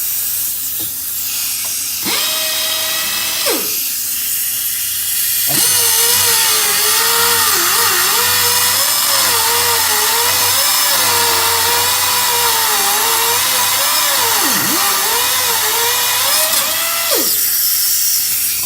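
Pneumatic cut-off tool (air cutter) whining as it cuts a hardened sway bar end link bolt, under a steady hiss of air. A short run comes about two seconds in, then a long run from about five seconds to near the end, its pitch wavering and dipping as the tool is loaded in the cut.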